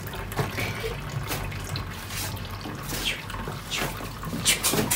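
Wet churning and squelching of sesame paste and water as the wooden pestle of a camel-turned oil mill grinds round the mortar, with irregular clicks.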